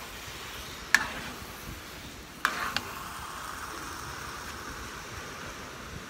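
Glutinous rice and jackfruit mixture sizzling in a wide metal pan. A metal spatula knocks sharply against the pan about a second in and twice more a moment later.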